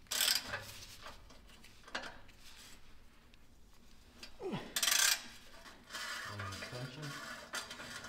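Metal hand tools clinking and scraping on a tight bolt under the car, in short bursts, with the loudest scrape about five seconds in.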